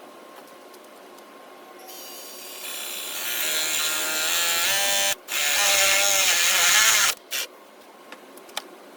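Power drill boring a 1 1/4-inch spade bit through a cedar fence picket. The motor whine starts about two seconds in and rises in pitch as it spins up, then runs loud under load. It cuts out briefly about five seconds in, runs again, and stops about two seconds later.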